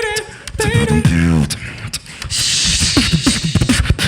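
A tag-team beatbox duo performing: sung melodic notes over mouth-made kick drums and deep bass tones, then a long hissing cymbal-like sound about halfway through.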